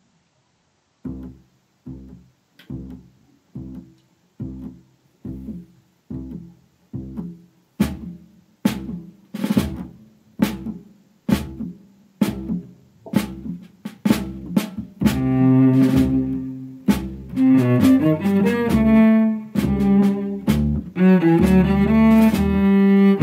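Jazz quartet of cello, guitar, bass and drums. After a second of silence, one plucked note repeats about every 0.7 seconds and grows louder about halfway through. About 15 seconds in, sustained bowed cello and the rest of the band come in.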